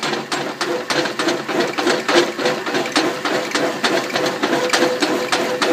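Boring bar in a milling machine spindle cutting built-up weld in a steel plow linkage bore: a fast, uneven rattling chatter over a steady whine. The spindle is turning faster than the machinist would like.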